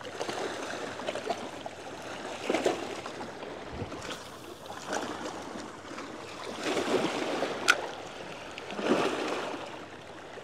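Small waves lapping and washing at the water's edge, rising and falling a few times, with a single sharp click late on.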